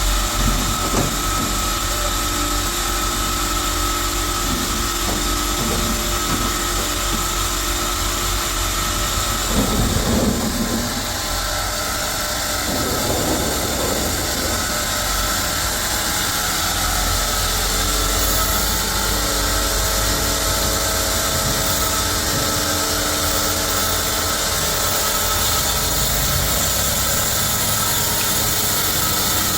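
Sawmill machinery running steadily with a high whine, with a louder patch of knocks and thuds about ten seconds in.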